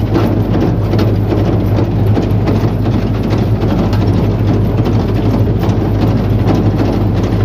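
Groundnut threshing machine running steadily under load: a continuous low engine-and-drum hum with a dense mechanical rattle through it, at an unchanging level.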